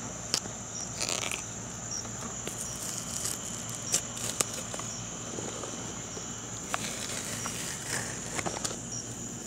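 Crickets chirping steadily in a continuous high tone, with a few sharp clicks and small knocks as the catfish's skin is cut and pulled off with pliers.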